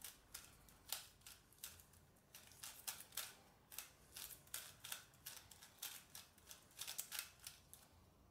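Gan 356i smart speed cube being turned quickly by hand: an irregular run of sharp plastic clicks from its layers snapping through turns, about three or four a second.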